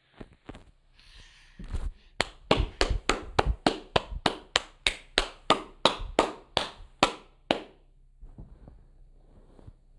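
A quick, even run of sharp taps, about three a second, starting about two seconds in and stopping about two and a half seconds before the end.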